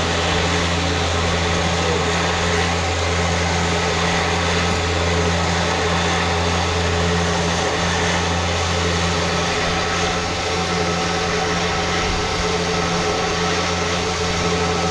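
Electric winch motor running steadily, a loud even hum, as the winch drum spools in new synthetic winch rope.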